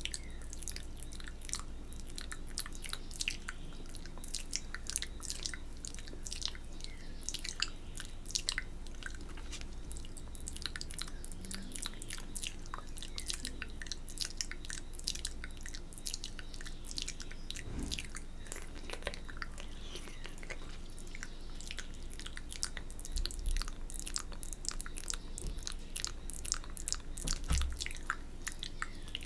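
Close-miked wet mouth sounds: quick tongue clicks, lip smacks and licking of wet fingertips, a dense irregular patter of small clicks, as used for ASMR spit painting.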